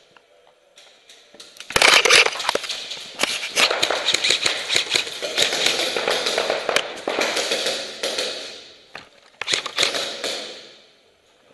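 Airsoft guns firing in long, rapid bursts, a dense crackle of shots starting about two seconds in and breaking off near eight seconds, then a shorter burst near the end.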